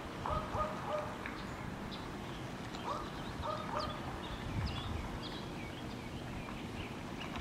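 A bird calling in two quick series of three or four short, pitched notes, about two and a half seconds apart. Faint high chirps of small birds come in between, over a steady outdoor background hiss.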